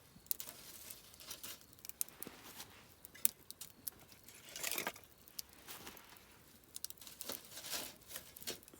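Wood campfire crackling, with frequent sharp pops and snaps at irregular intervals and two brief hissing swells, one about halfway and one near the end.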